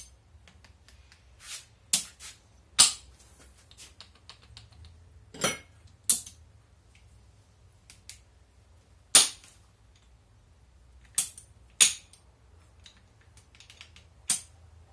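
Sharp metallic clinks of steel gearbox parts (gears, synchronizer rings, bearings) knocking together as they are handled and fitted onto a Lada Samara 2109 gearbox shaft: about eight separate clinks, irregularly spaced a second or more apart.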